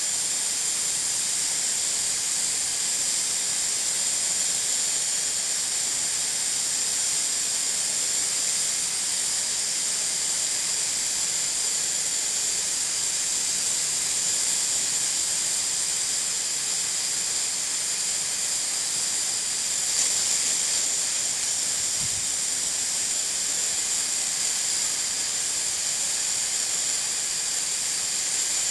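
Pressure cooker venting steam through its weighted valve: a steady, high-pitched hiss, the sign that the cooker is up to working pressure.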